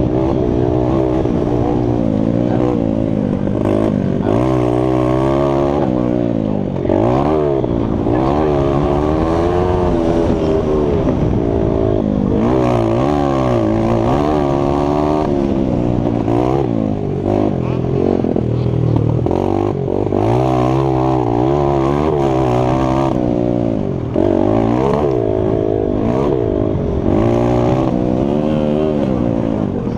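Mini bike engine revving hard up and down over and over under racing throttle, its pitch rising and falling with each run, with brief drops in level about 7 and 24 seconds in.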